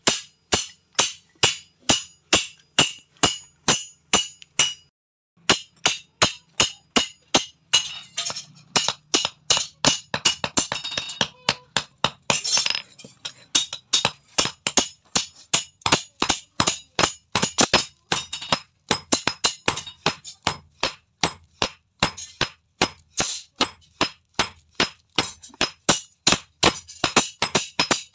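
Hand hammer forging a steel rebar rod on an anvil: sharp metallic blows in a steady rhythm, about two to three a second, some ringing on, with a brief pause about five seconds in.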